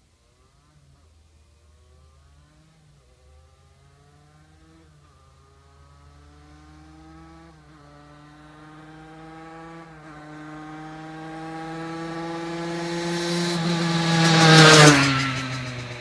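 Aprilia RS 50's 50 cc two-stroke single accelerating toward the listener through the gears, the pitch climbing and dropping back at each of about five upshifts as it grows louder. It passes by loudly near the end with a sudden drop in pitch, then fades away.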